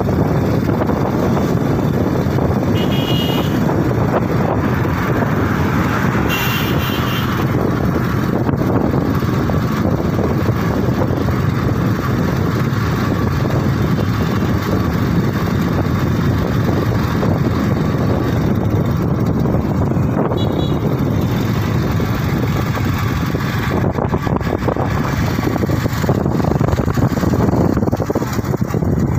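Wind rushing over the microphone and road noise from a moving motorcycle, its engine running steadily at cruising speed. Two brief high tones sound in the first seven seconds.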